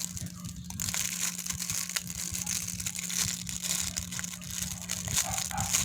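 Packaging crinkling and crackling steadily as it is handled, with a faint steady low hum underneath.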